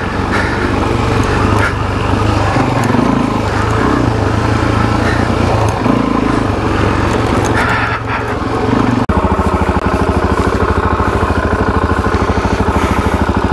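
Suzuki DR-Z400SM's single-cylinder four-stroke engine running while the bike is ridden, the revs rising and falling. About nine seconds in, the sound breaks off abruptly and gives way to the engine running with an even, rapid pulse at steady revs.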